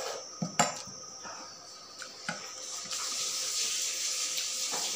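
Close-up mouth sounds of eating a boiled egg: a few sharp smacks in the first second and another a little after two seconds in. About three seconds in, a steady hiss sets in.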